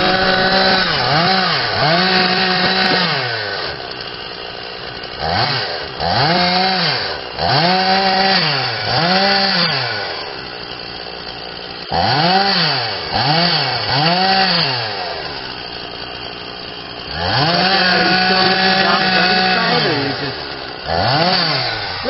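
Chainsaw cutting into a standing tree trunk, the engine revving up and dropping back about once a second as the bar works through the cut. Near the end it is held at full throttle for a few seconds, and twice it falls back to a quieter idle.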